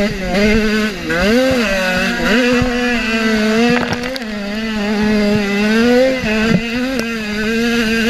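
Dirt bike engine heard from on board, running hard at high revs; its pitch dips and climbs back about a second in and again shortly after, then holds steady. A few sharp knocks come around the middle.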